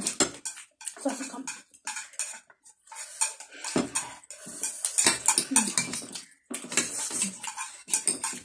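Chopsticks, a spoon and a fork clicking and scraping against ceramic plates in quick irregular clusters, along with the sounds of eating noodles.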